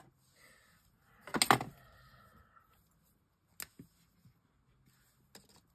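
Plastic marker pens handled on a craft mat: a loud clatter about one and a half seconds in, then a few sharp clicks as they are picked up and set down.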